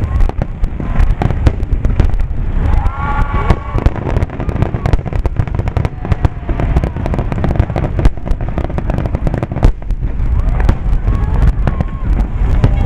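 Aerial firework shells bursting in a rapid barrage: many sharp bangs and crackles over a continuous low booming rumble.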